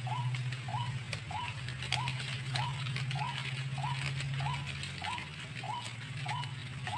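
White-breasted waterhen call: short hooked notes repeated evenly, about one and a half a second, over a steady low hum and scattered faint clicks.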